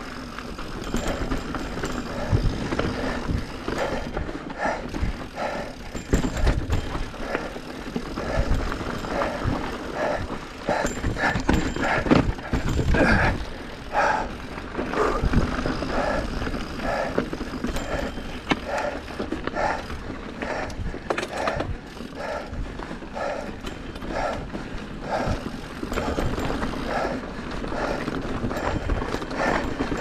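Mountain bike ridden over rocky dirt singletrack: tyres crunching over loose stones, the bike rattling on rocks, with a rumble of wind and ground noise. A regular pulse recurs about three times every two seconds.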